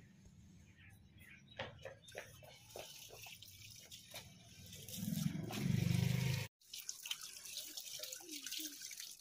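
Water running from a wall tap onto a cloth being rinsed and squeezed by hand, splashing and dripping onto concrete. About five seconds in, a louder low rumble lasts about a second and a half and stops abruptly.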